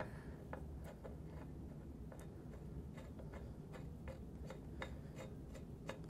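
Faint, irregular ticks and light rubbing as a bicycle pedal's threaded spindle is turned by hand into the right crank arm.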